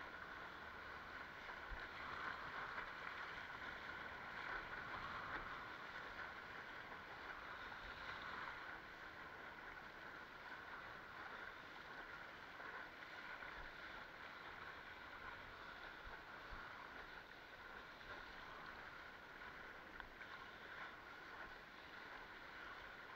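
Water rushing and splashing along the nose of a Fanatic Ultra Cat windsurfing longboard as it sails through light chop: a steady hiss that eases a little after about eight seconds.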